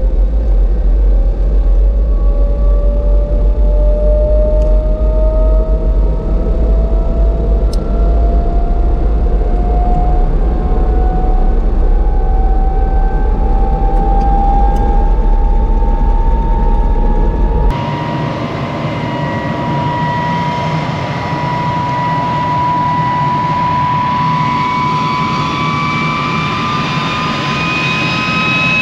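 MiG-17's turbojet engine spooling up, a whine rising steadily in pitch over a low rumble. About two-thirds of the way in, the deep rumble suddenly drops away and the whine carries on, a little higher.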